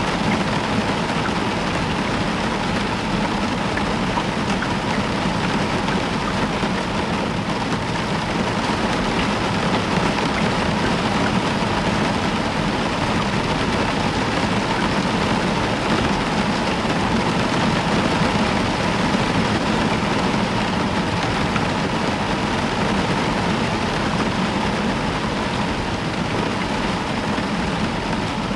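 Heavy rain falling steadily on a roof, a constant even hiss with no sudden claps.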